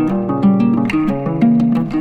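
Background music: a calm melody of plucked string notes, several a second.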